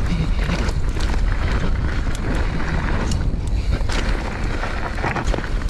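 Wind buffeting the microphone over the rumble of a mountain bike rolling fast down a loose gravel trail, with scattered clicks and rattles from stones and the bike.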